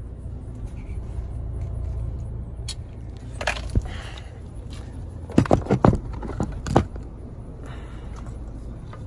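Handling noise as a phone is moved about and set down: a steady low rumble with a knock about three and a half seconds in and a quick run of clicks and knocks between about five and seven seconds in.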